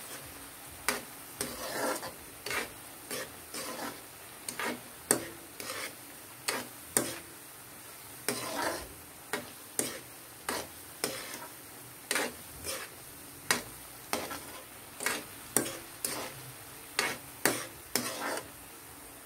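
A spatula stirring sweet potato cubes in hot oil in a wok, scraping and knocking against the pan about once or twice a second, over a steady sizzle of deep-frying.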